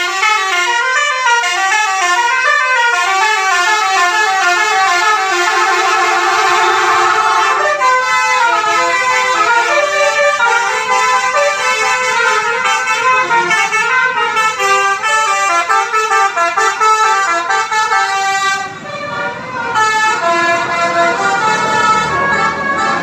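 Telolet basuri multi-tone bus horn playing a fast melody: several horn notes sound together and step up and down in quick succession. The tune changes about eight seconds in and breaks off briefly near the end.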